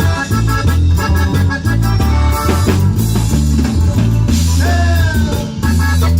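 Live cumbia band playing an instrumental passage with a steady bass line, drum kit and keyboard. A held note bends downward a little past the middle.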